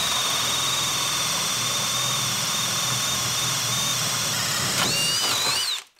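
Kobalt brushless hammer drill boring a 1-1/8-inch spade bit into a thick wooden block: a steady high motor whine over the rasp of the cutting wood. The whine jumps and wavers about five seconds in, then the drill stops just before the end.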